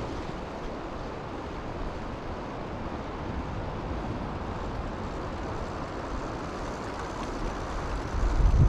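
Steady rushing of a fast-running creek, with a low buffeting rumble on the microphone near the end.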